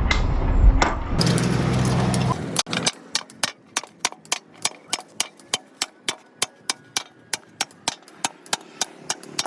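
A steady mechanical hum that cuts off after about two and a half seconds, followed by a long run of sharp taps, about three a second, typical of light hammering or tapping on a hard object.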